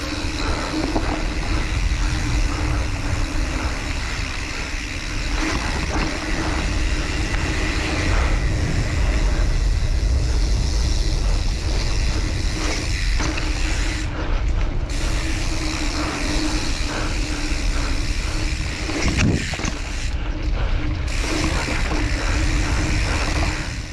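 Mountain bike riding fast down a dirt forest singletrack: wind rushing over the camera microphone, the tyres rolling and humming on the dirt, and the bike rattling and clattering over bumps all the way down.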